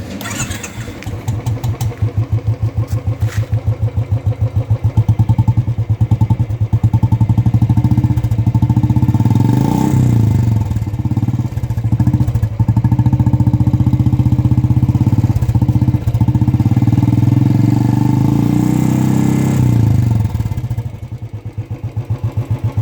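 Royal Enfield Classic single-cylinder engine running through a Swagman Indori short-bottle silencer packed with ceramic wool, giving a deep, even "dug dug" thump. It is revved briefly about ten seconds in and again near the end, then drops back to a slow idle. It doesn't sound that loud.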